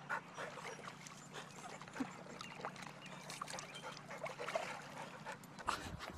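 Faint water sloshing and small splashes in a plastic tub as a golden retriever shifts about in it.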